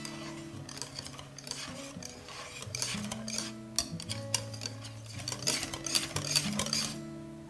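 Wire balloon whisk beating egg into cream cheese batter in a glass bowl: quick repeated strokes, the wires swishing through the wet batter and clicking against the glass. The strokes grow busier and louder in the second half.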